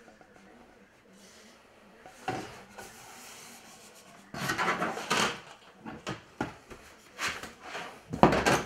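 Stiff model-kit parts sheets sliding and rubbing against each other and a cardboard box as they are handled, in several scraping bursts after a quiet start, the loudest near the end.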